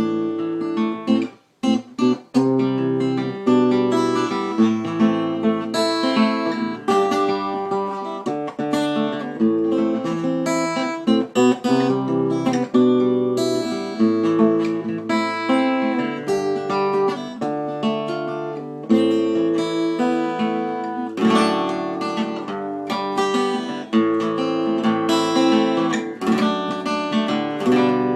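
Acoustic guitar played solo, strummed and picked chords with a short break about a second and a half in.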